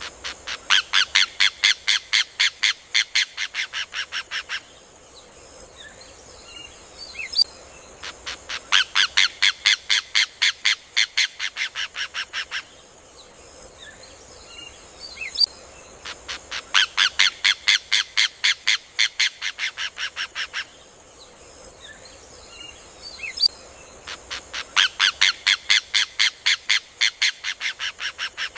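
Rufous hornero (João-de-barro) song: four loud bouts of rapid, sharp, repeated notes, about five a second, each lasting around four seconds and fading slightly at the end, with pauses of a few seconds between. A faint steady high hiss runs in the background.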